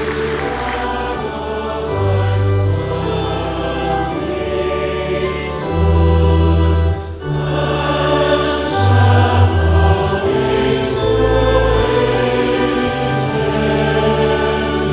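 Choir singing over held low bass notes that change every second or two, while applause dies away in the first second.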